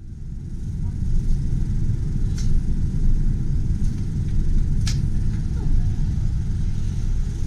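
Steady low rumble inside a moving Incheon Airport Maglev car, fading in at the start, with a couple of light clicks.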